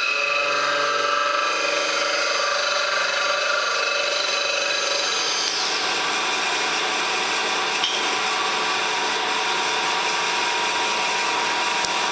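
An 80 mm face mill on a milling machine taking a light skim cut across an aluminium plate. The cut starts as a steady whine and turns rougher and noisier about halfway through: chatter, set off by the bowed plate not sitting down properly on the table.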